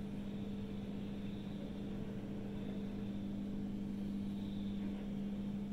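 Steady low drone of diesel demolition machinery running below, muffled by distance, with a faint high whine above it.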